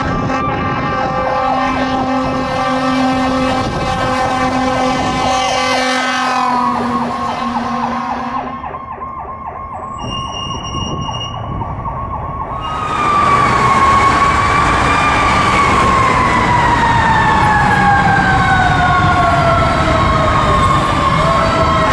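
Fire apparatus electronic Powercall siren, first cycling fast with short low horn blasts over it. After a quieter break it sounds a slow wail that rises, then glides steadily down in pitch.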